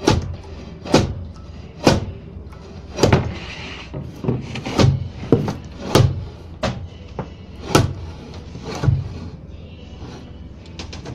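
A series of sharp, loud knocks at irregular spacing, roughly one a second, from hand rigging work on a heavy machine tool resting on steel rigging skates.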